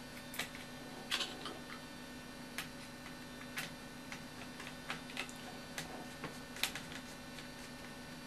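Light, irregular clicks and ticks of a metal side plate and small screws being handled and fitted against a model helicopter frame, about ten in all, over a steady low electrical hum.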